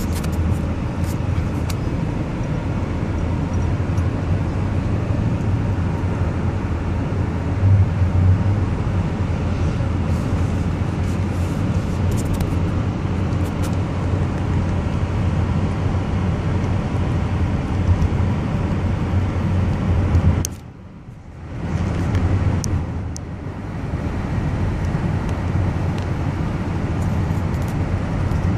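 Steady drone of a moving car's engine and tyres on the road, heard from inside the cabin. About two-thirds of the way through, the sound drops away sharply for about a second, dips again shortly after, then returns.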